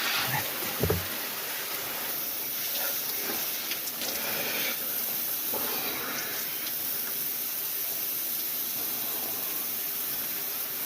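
Shower spray running steadily, water hissing down onto a person. There are a couple of low thumps about a second in.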